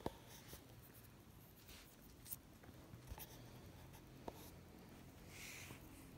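Near silence with a few faint clicks and a soft scratchy rub near the end, from fingernails picking at peeling sunburned skin.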